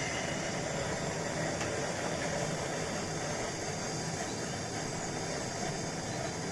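Blowtorch flame burning with a steady rushing noise as it heats a soldered copper pipe joint to melt the solder.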